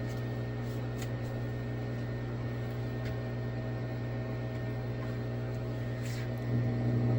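Steady machine hum, a low drone with several faint steady tones above it, and a few faint clicks.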